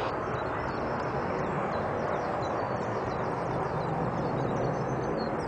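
Steady rushing outdoor background noise with faint, short, high bird chirps scattered through it.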